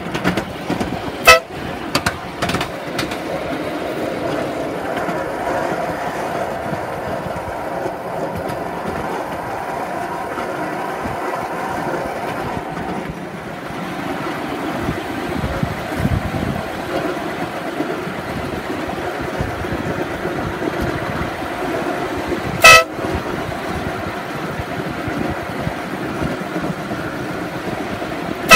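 Ride-on miniature railway train running along its track with a steady rumble, sounding three short toots: one about a second in and two near the end.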